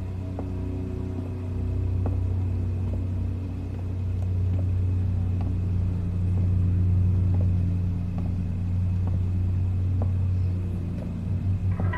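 Low, steady rumbling drone of a suspense film score, with a few held tones above it. Near the end a higher tone comes in and the level begins to pulse.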